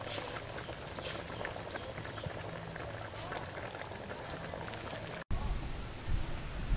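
Beef curry being ladled from the pot into a glass bowl: liquid splashing and bubbling with many small crackles. It breaks off suddenly about five seconds in, and a low hum takes over.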